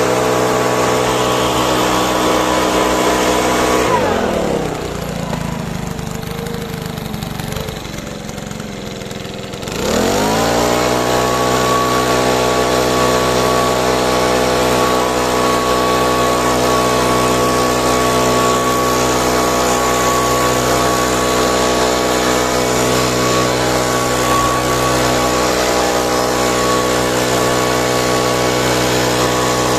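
Small petrol engine of garden power equipment running at full speed, dropping to a rough idle about four seconds in, then revving back up to full speed around ten seconds in and running steadily.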